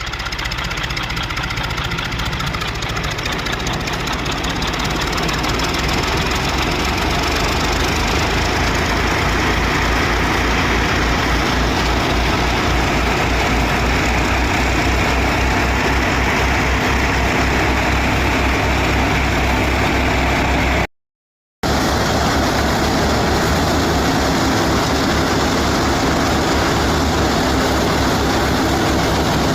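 Tractor-driven wheat thresher running steadily: the tractor's engine and the threshing machinery make a loud, continuous mechanical noise. The sound drops out abruptly for under a second about two-thirds of the way through, then carries on.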